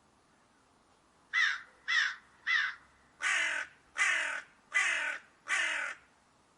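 A crow cawing seven times: three short caws about half a second apart, then four longer, fuller caws spaced a little under a second apart.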